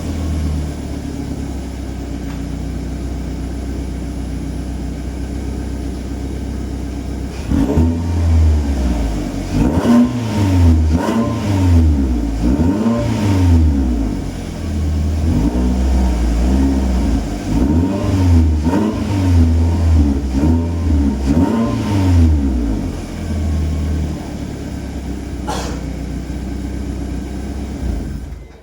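Exhaust of a Proton Persona's Campro four-cylinder engine, breathing through a 4-1 extractor and a Tanabe Hyper Medallion S-Flow muffler. It idles steadily for about seven seconds, then is revved in a long series of quick blips, each rising and falling in pitch, and settles back to idle near the end.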